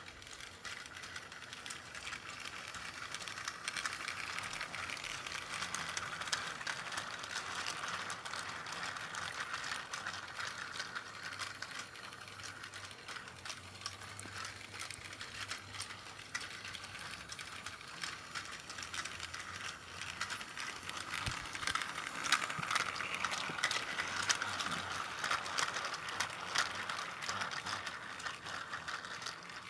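Plarail toy C12 steam locomotive running on plastic track with a five-car container train: its battery motor and gearbox whirring steadily, with many small clicks. The sound grows louder twice as the train comes round near.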